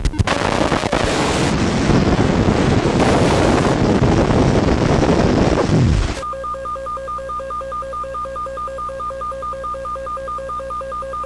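A loud rushing, rumbling noise cuts off suddenly about six seconds in. An electronic alert tone with two pitches then pulses about four times a second, the attention signal of a simulated emergency alert broadcast.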